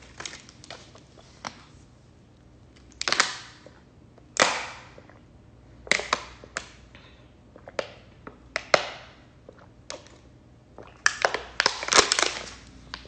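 Thin plastic water bottle crackling and popping as it is gripped and squeezed while someone drinks from it: a string of sharp cracks, thickest and loudest near the end.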